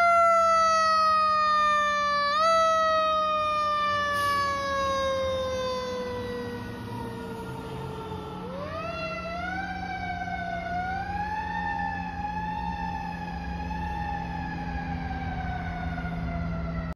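Fire engine siren: a single wailing tone slides slowly down in pitch for about eight seconds, with two brief lifts, then climbs again and wavers up and down. It grows fainter as the truck pulls away.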